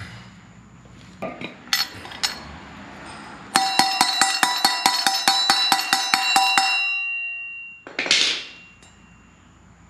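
Rapid light hammer taps on metal, about six a second for some three seconds, each ringing brightly: a new wheel bearing being tapped home in the steel rear sprocket carrier. A short scrape follows.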